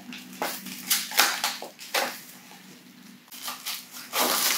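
Plastic plant pot crackling and soil rustling as a potted plant is squeezed and worked out of the pot, in a series of short crackles with a louder burst near the end.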